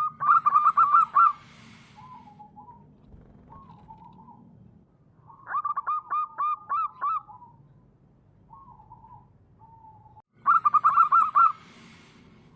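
Zebra dove song: three bursts of rapid, repeated coos about five seconds apart, each lasting about a second and a half, with softer, lower coos between them.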